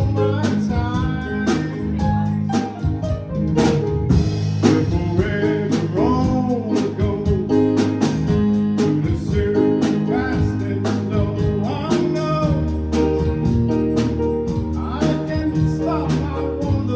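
Country-rock song with guitar, bass and a drum kit keeping a steady beat, and a singing voice over it.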